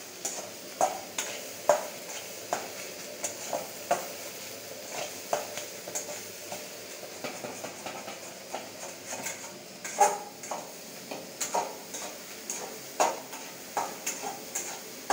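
A spatula scraping and clinking against a steel pan at an irregular pace as scrambled egg is stirred, over a steady sizzle of frying.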